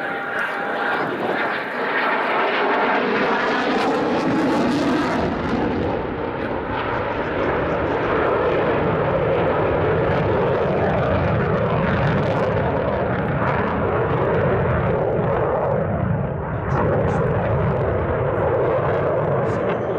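Eurofighter Typhoon fighter jet flying past with its twin turbofan engines running. A loud, continuous jet noise falls in pitch over the first few seconds as the aircraft passes, then settles into a steady rumble.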